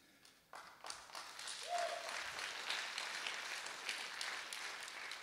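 Audience applause that starts about half a second in, builds quickly, then slowly thins out near the end; a short held note rises above it just before two seconds in.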